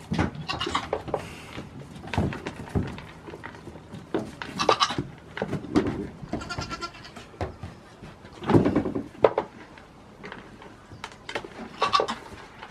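Young goats bleating several times, the loudest call about two-thirds of the way through, with short knocks in between.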